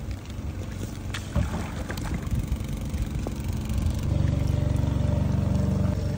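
A motor engine's low steady hum, growing louder about four seconds in, over rain falling on open water.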